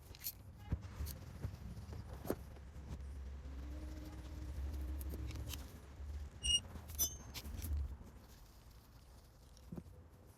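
Hand tools clicking and clinking on metal while the last camshaft sprocket bolts of a 5.3 LS V8 are run in and torqued, with a couple of short metallic rings about 6.5 and 7 seconds in. A low rumble underneath fades out about 8 seconds in.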